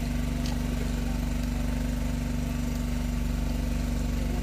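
Fishing boat's onboard engine running steadily, a low even hum with a fast regular pulse.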